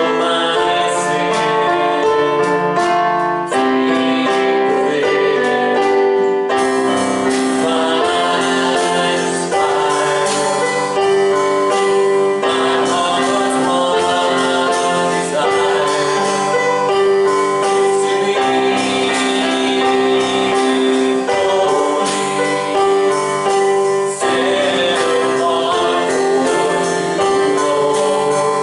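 Worship music: piano or keyboard playing sustained chords with singing.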